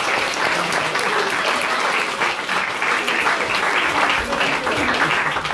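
Audience applauding steadily, a dense patter of many hands clapping, with a few voices mixed in.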